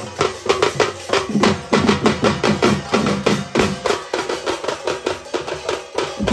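Several large barrel drums (dhol) beaten with sticks in a fast, steady ceremonial rhythm, about four or more strokes a second.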